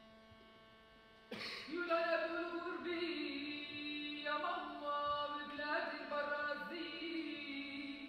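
A single voice singing a slow melody in long held notes, starting suddenly about a second in and stopping near the end, over a steady electrical hum.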